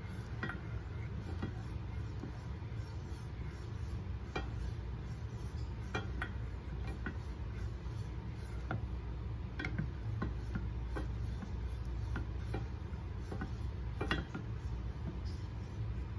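Wooden spoon stirring simmering teriyaki sauce in a stainless steel saucepan, knocking lightly and irregularly against the pan's side over a steady low hum.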